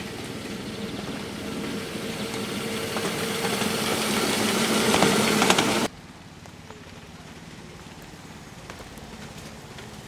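Small engine of a 7.25-inch gauge diesel-outline miniature locomotive running as it approaches, growing steadily louder, with a few clicks near the end. About six seconds in it cuts off abruptly to a quieter, more distant engine running.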